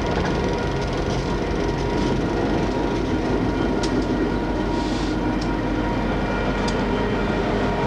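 Reading and Northern diesel-electric locomotives passing at close range, their engines running with a steady drone and a few steady whine tones over it. A few brief sharp clicks come from the running gear partway through.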